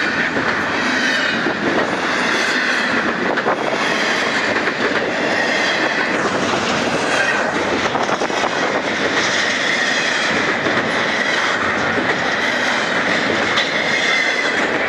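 Double-stack intermodal well cars of a freight train rolling past close by: the steady rumble of steel wheels on rail with a continuous, wavering high squeal from the wheels and scattered clicks over rail joints.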